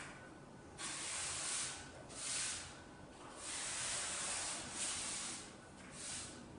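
Broom bristles swishing across a concrete floor in repeated sweeping strokes, each lasting about a second.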